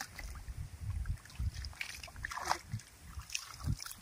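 Water sloshing and splashing, with irregular low thumps and scattered clicks, and a louder splash a little after halfway.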